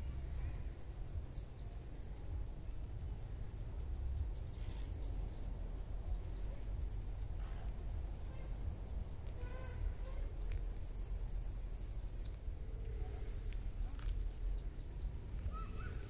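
Birds chirping and calling, with scattered short high twitters and a rapid trill about two-thirds of the way through, over a steady low rumble.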